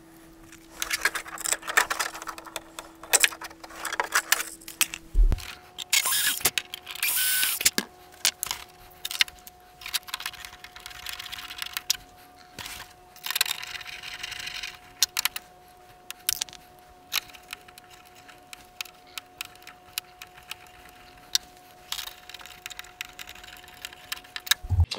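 Hands handling small parts and wiring inside a model jet's fuselage: irregular clicks, taps and rustling, busiest in the first several seconds. A faint steady hum runs underneath and shifts higher in pitch about five seconds in.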